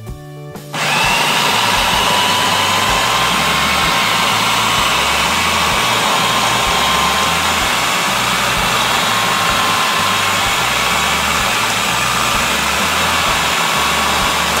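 Cuisinart food processor running steadily with a steady whine, its blade chopping peeled garlic into small bits; the motor starts just under a second in.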